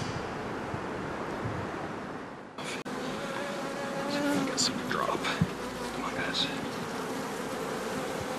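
Honeybees buzzing in a steady drone around an open hive and swarm.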